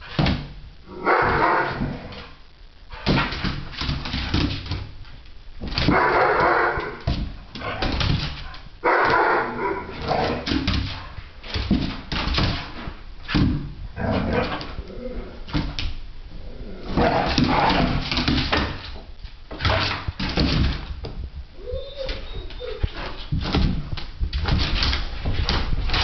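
Two dogs, one a young American Pit Bull Terrier, playing together: bursts of barking and whimpering several times over, with many short knocks and scuffles in between.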